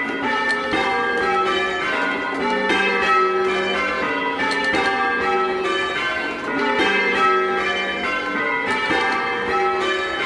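A ring of six clonky, old-fashioned church bells in G, tenor 11 cwt, being rung full circle in change ringing. The bells strike one after another in a steady, even rhythm, their tones overlapping.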